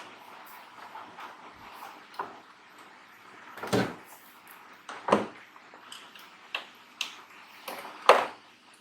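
A series of sharp knocks and clicks of hard parts being handled, with three louder knocks spread over several seconds among lighter clicks.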